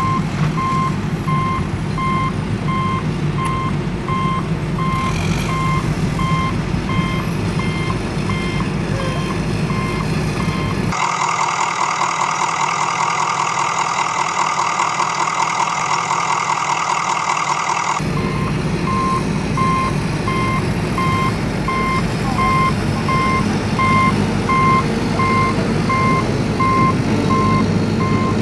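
Heavy truck engine running with a reversing alarm beeping at an even pace, a sound effect laid over the toy scene. For about seven seconds in the middle, the engine and beeps give way to a higher-pitched pulsing mechanical whir.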